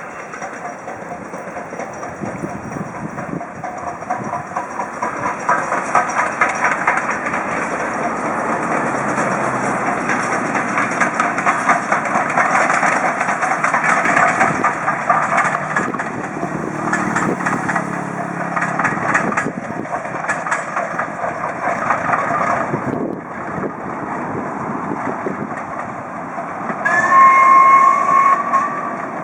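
Heritage railway train passing, with rhythmic wheel clatter on the rails that grows louder after the first few seconds. Near the end, a whistle sounds briefly for about a second and a half.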